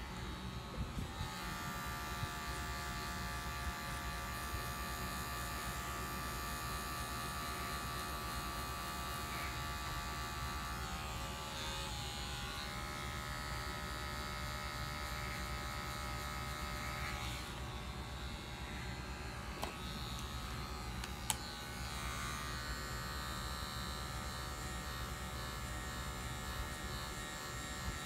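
Electric hair clippers buzzing steadily as they cut a fade with a half guard, the tone shifting a couple of times as the blade moves through the hair. One sharp click comes about three-quarters of the way through.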